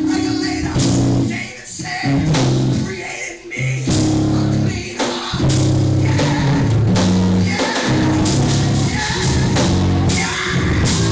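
Live church band playing loud upbeat music with bass guitar and drums, with voices singing along.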